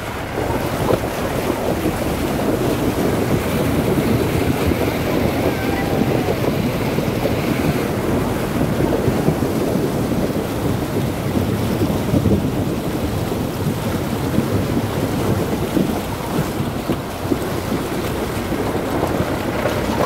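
Jeep driving through a stream crossing: water churning and splashing around it, mixed with engine noise and wind on the microphone.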